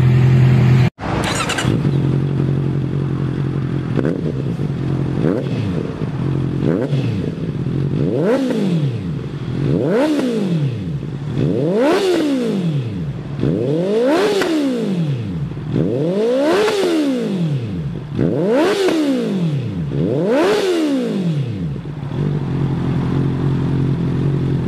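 Honda CB650R/CBR650R inline-four through an aftermarket exhaust, idling and then blipped about ten times, roughly every two seconds. Each blip rises and falls quickly in pitch, with the later ones revving higher, before the engine settles back to idle near the end.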